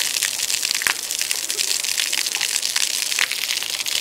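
Spray from a garden hose spattering onto a wet concrete deck: a steady hiss dotted with many small ticks.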